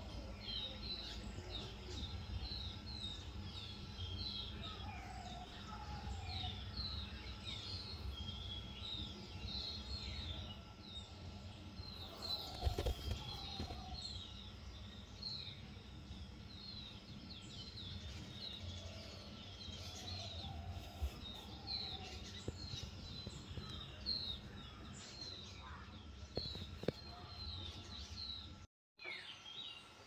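Small birds chirping busily, with rapid short high chirps throughout and occasional lower calls, over a low rumble. There is a brief knock about halfway through.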